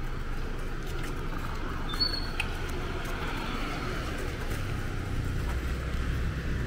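Street traffic on a beachfront road: motorbikes and cars passing, a steady low rumble that grows stronger in the second half, with one brief click about two seconds in.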